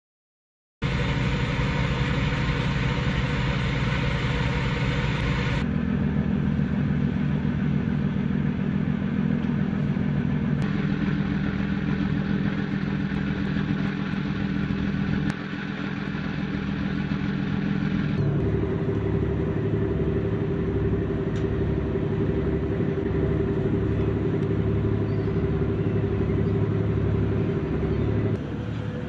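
Fishing boat's engine running with a steady deep hum. The sound changes abruptly several times, and in the last part a low throb pulses about once a second.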